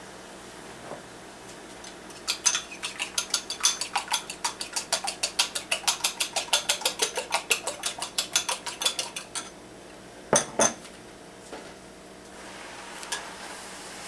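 Metal spoon beating quickly in a small ceramic bowl: a fast run of clinks, several a second, for about seven seconds. Then two quick knocks against the bowl.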